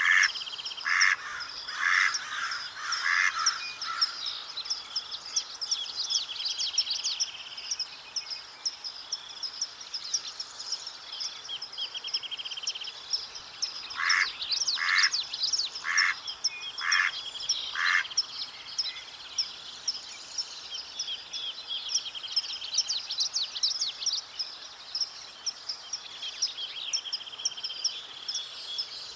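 Mallard quacking in two runs of about five quacks each, one at the start and one about halfway through. Throughout, other birds chirp high and thin, with short buzzy trills.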